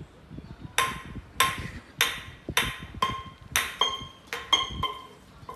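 A small can being dragged by a rat, knocking against a concrete floor in a string of about ten ringing clinks, unevenly spaced at roughly two a second.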